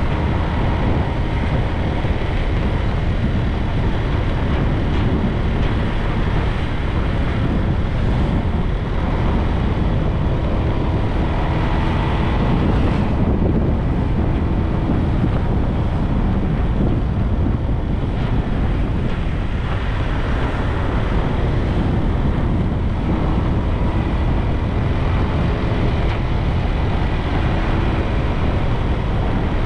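Steady wind buffeting the microphone over the running noise of a moving motorbike and its tyres on the road.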